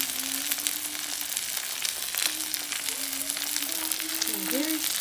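Tofu sisig sizzling on a hot cast-iron sizzling plate: a steady crackling hiss dotted with fine pops. A faint low tone wavers underneath near the end.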